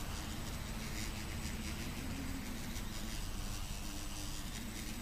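Quadcopter's electric motors and propellers humming steadily out of sight, the pitch wavering a little as the throttle changes.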